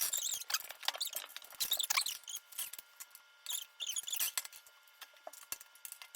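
Plastic toy dinosaur segments being handled and fitted together at their magnetic joints: many small clicks and high squeaks, busiest in the first couple of seconds and then sparser.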